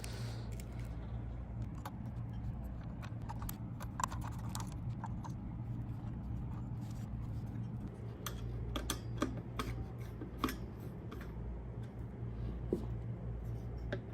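Scattered small clicks, taps and light scrapes of computer parts being handled, over a steady low hum.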